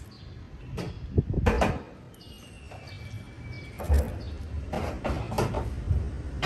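Irregular knocks and scraping sounds of hard objects being handled, loudest a little over a second in and again about four seconds in.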